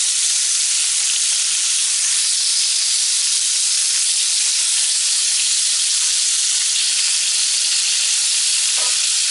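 Venison tenderloin medallions sizzling in hot oil in a ridged grill pan as they sear: a steady, even frying hiss.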